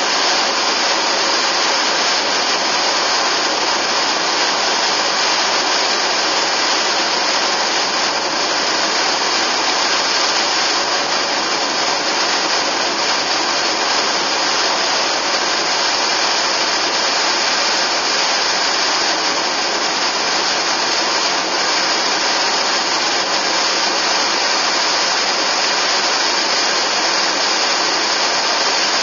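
Steady rushing noise of a car driving at speed: tyre and wind noise, an even hiss that stays the same throughout.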